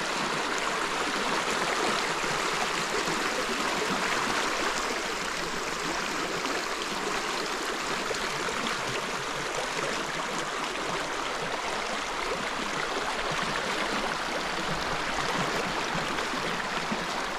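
River water flowing over rocks and a logjam, a steady even rushing.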